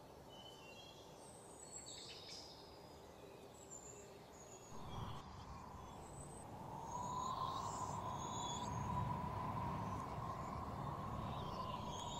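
Quiet outdoor ambience: birds chirping in short high calls over a low background rumble, joined about halfway through by a faint steady hum.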